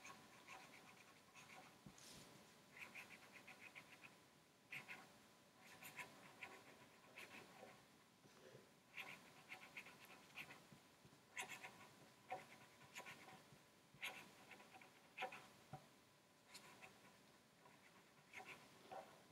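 Near silence: faint room tone with faint, irregular short rasping sounds about once a second.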